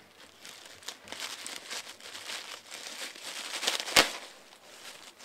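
Thin plastic carrier bag crinkling and rustling as it is handled and cut open with scissors, with one sharp snip-like click about four seconds in.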